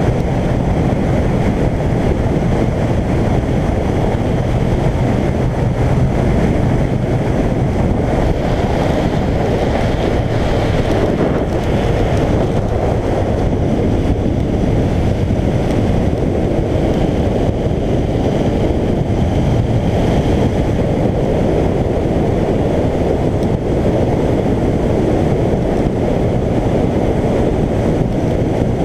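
Suzuki GSX1400 inline-four motorcycle cruising at steady motorway speed: heavy wind rush on the microphone over the engine's steady low hum.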